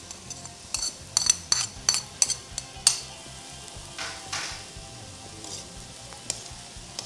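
Metal cooking utensil clinking sharply several times as chopped green bell pepper goes into a metal wok, then scraping through the pan as the pork and vegetable stuffing is stirred, over a low frying sizzle.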